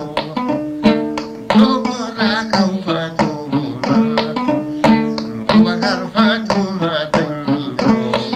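Music: a plucked string instrument and percussion playing a busy, evenly pulsed pattern.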